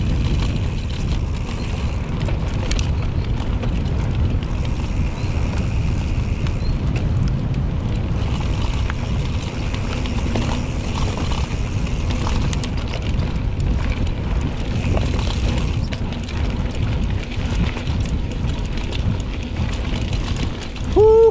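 Wind buffeting an action camera's microphone while riding a mountain bike on a rough trail: a steady low rumble with tyre noise and many small rattles and clicks from the bike.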